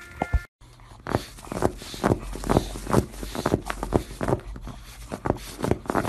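A pug pawing at a plastic bag: the plastic crinkles and crackles in irregular sharp strokes, a few a second.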